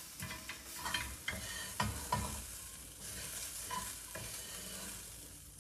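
Green beans and a dry spice blend being stirred in a pan over heat: a utensil scrapes and clicks against the pan several times over a steady sizzle. The strokes are frequent in the first half, then the sizzle carries on with only a few more.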